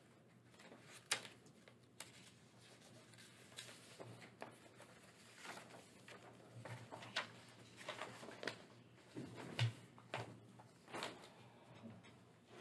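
Paper rustling and pages being handled, with scattered light clicks and knocks over a low steady hum; two sharper knocks stand out, about a second in and about three quarters of the way through.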